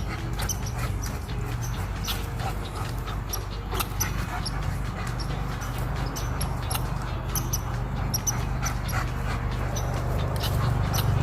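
A dog's noises over many small sharp clicks and a steady low hum.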